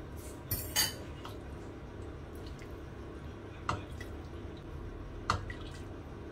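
Metal ladle clinking against a stainless steel pot while broth is ladled and poured over noodles in a bowl. A cluster of sharp clinks comes about half a second in, then two single clinks about a second and a half apart in the second half, over a steady low hum.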